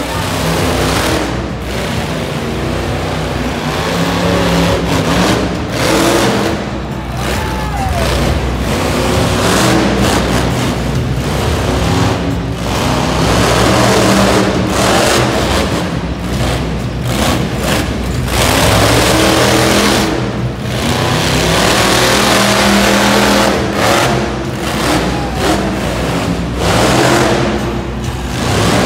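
Monster truck V8 engine running and revving, its loudness rising and falling again and again as the truck drives, with music playing underneath.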